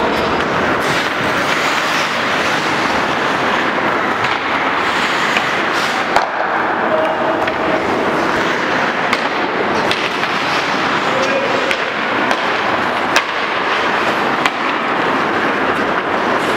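Ice hockey play in a rink: a steady hiss of skates on the ice with a background of voices, and a few sharp clacks of sticks and puck, the loudest about 13 seconds in.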